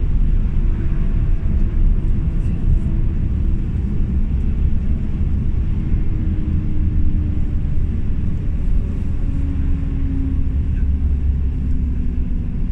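Steady engine and road drone inside a moving tour bus, with a faint engine tone slowly sinking in pitch.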